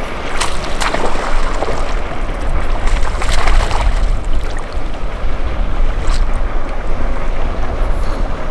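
A hooked bass splashing and thrashing at the surface beside a kayak: a few splashes in the first four seconds and another about six seconds in, over a steady rumble of wind on the microphone.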